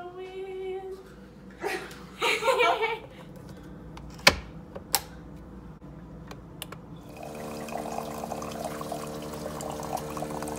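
Two sharp clicks, then a Bella single-serve coffee maker runs with a steady hum, and hot chocolate gurgles and pours into a ceramic mug from about seven seconds in.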